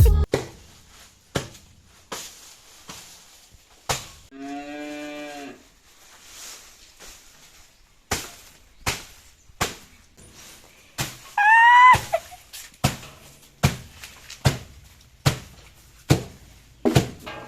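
A cow moos once, a steady call of about a second and a half, about four seconds in. Near two-thirds of the way through there is a louder, much higher cry that rises and falls, and sharp knocks sound throughout, coming about once a second in the second half.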